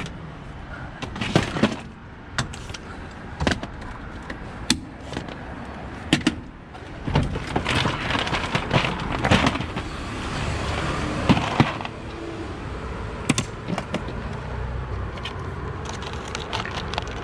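Scattered knocks, clicks and rustling as items are handled and rummaged through while spare batteries are fetched, with a longer burst of rustling about seven seconds in. A steady low hum of street traffic runs underneath.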